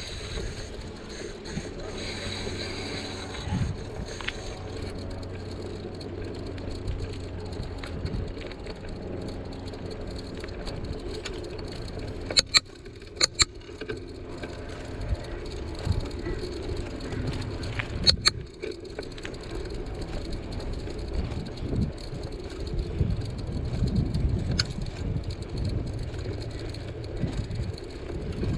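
Bicycle in motion: steady wind and tyre noise with light rattling of the bike. About halfway through come three sharp clicks or knocks close together, and two more a few seconds later.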